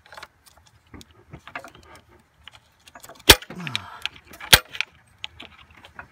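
Screwdriver and hand tools clinking and scraping on metal in a car engine bay while prying at a spring hose clamp, with two sharp metallic clicks a little over a second apart in the middle.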